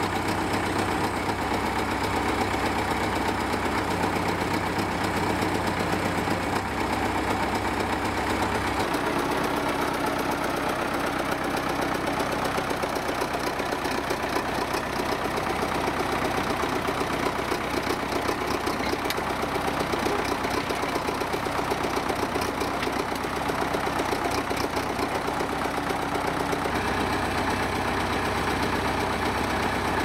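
Old crawler bulldozer's engine running steadily as the machine pushes a timber pole upright with a boom on its blade. The engine note shifts about nine seconds in and again near the end.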